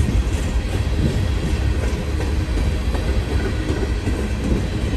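Empty coal train of hopper cars rolling past, a steady low rumble of wheels on rail.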